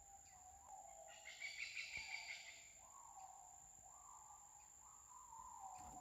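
Faint jungle ambience. A distant animal calls in a series of drawn-out notes, each rising and then slowly falling, one about every second in the second half. A steady high insect whine runs underneath, with a burst of higher chirping about a second in.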